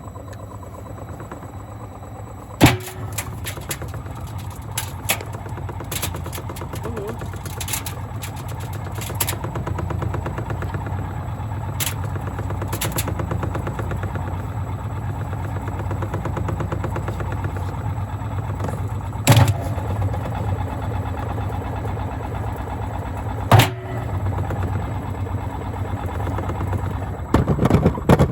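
Gorenje washing machine running with bricks loaded in its drum: a steady motor-and-drum hum that slowly grows louder as it speeds up, with a few hard bangs of brick on drum. Near the end the bangs come rapidly one after another.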